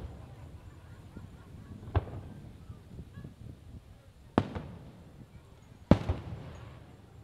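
Aerial fireworks shells bursting: three sharp booms, a second and a half to two and a half seconds apart, each trailing off in a rolling echo. The last boom is the loudest.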